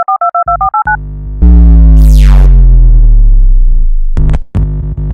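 Electronic synthesizer intro sting. A quick run of short high beeps opens it, then a loud low synth chord with a falling sweep holds for a couple of seconds, and it ends in a few short, choppy hits.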